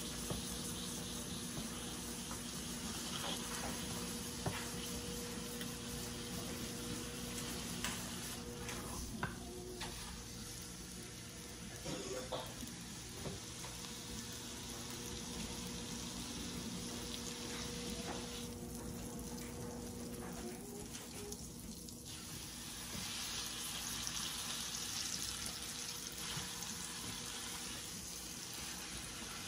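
Steak sizzling as it sears in a hot frying pan, with a few sharp clicks of metal tongs against the pan as the meat is turned.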